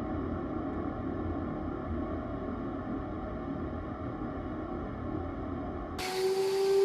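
Diamond core drilling machine working on reinforced concrete: a steady low grinding rumble. About six seconds in, the drill motor's high, steady whine cuts in.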